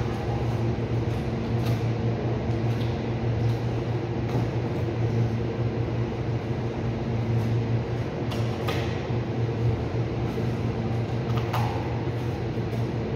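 Steady low mechanical hum of a ceiling-mounted cooling unit, with a few faint knocks and scrapes of a boning knife cutting meat from a beef forequarter.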